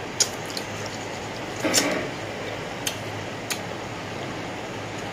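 A few sharp clicks and small taps from eating and handling mango slices at a table, over a steady background hiss. The loudest is a short smacking sound a little under two seconds in.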